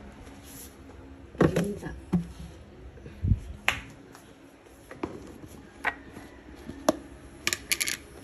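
Plastic food container and its lid being handled and opened: an irregular string of sharp clicks and knocks, with a duller thump about three seconds in.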